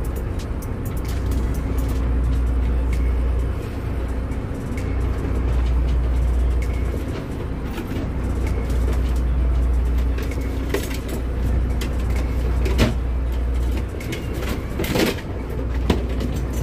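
Steady low rumble of a boat's engine and rail-mounted crab pot hauler running while a pot line is hauled in over the sheave. The rumble swells and eases every few seconds, and a few sharp knocks come in the second half.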